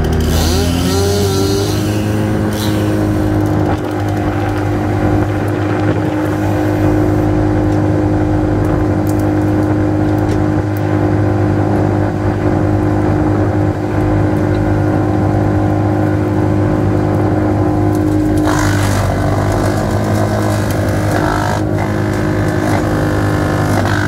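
Bandit Intimidator 12XP wood chipper running hard on its 120 hp Cat diesel engine as pine trees are fed in. The engine pitch rises about a second in as it picks back up, and about three-quarters of the way through loud crunching sets in and the pitch dips slightly as the chipper takes a load of pine.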